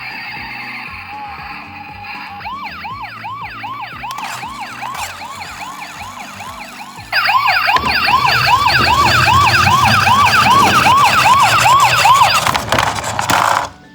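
Toy ambulance's electronic siren sounding a fast repeating up-and-down sweep, about two or three times a second. About halfway it turns much louder, joined by a low rumble, then cuts off abruptly near the end.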